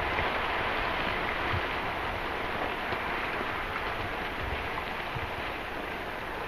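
Block-and-ash pyroclastic flow pouring down the flank of Santiaguito's lava dome: a steady rushing hiss of tumbling rock and ash that slowly eases off.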